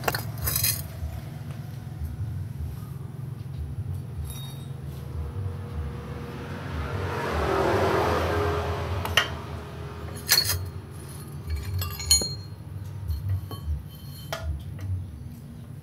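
Metal clinks and taps as a chrome motorcycle muffler is handled and worked at its end with a metal tool, several sharp clinks in the second half. A hiss swells and fades about halfway through, over a steady low hum.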